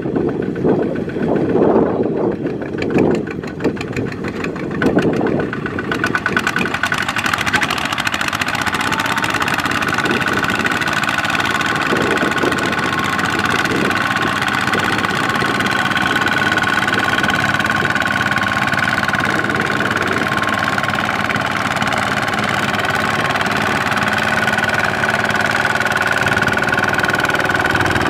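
The single-cylinder diesel engine of a two-wheel walking tractor runs under load as it hauls a loaded trailer through mud. It sounds uneven and pulsing for the first several seconds, then runs steadily.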